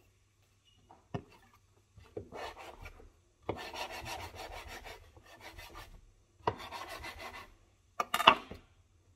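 Kitchen knife sawing through a bunch of hair on a wooden chopping board: four bursts of quick rasping strokes, with a sharp knock of the blade on the board near the end.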